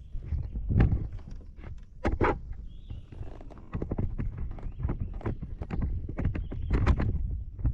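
Irregular hollow knocks and clunks, with the loudest about a second in, about two seconds in and around seven seconds in: gear or hands bumping against a fishing kayak's hull.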